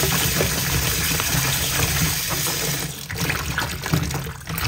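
Tap water running into a plastic basin of fresh mushrooms while a hand swirls and rubs them, splashing. The running water stops about three seconds in, leaving softer splashing from the hand.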